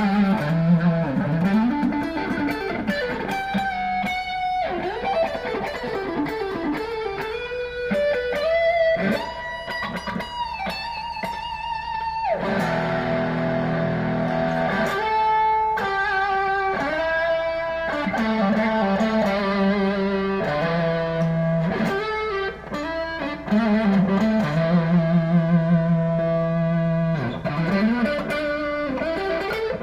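PRS SE Custom 24 electric guitar with a roasted maple neck and fingerboard, played through an amp: single-note lead lines with string bends and slides, and some held notes. About halfway through there is a denser stretch of several notes ringing together.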